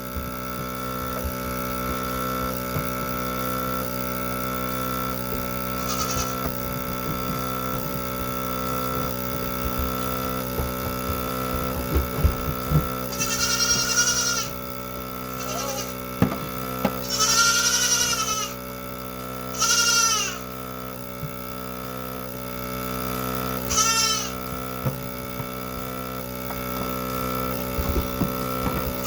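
Automatic goat milking machine running with a steady hum and a regular pulse about once a second. A goat bleats six times, high-pitched and wavering: once briefly, then several longer bleats in the second half.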